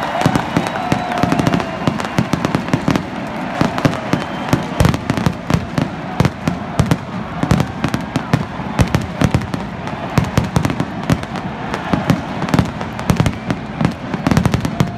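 Aerial fireworks display going off in rapid succession: a dense, continuous string of sharp bangs and crackles.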